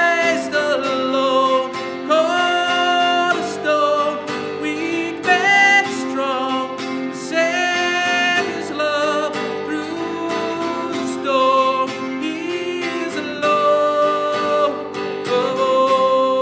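Acoustic guitar music: a melody over held chords, with frequent plucked notes.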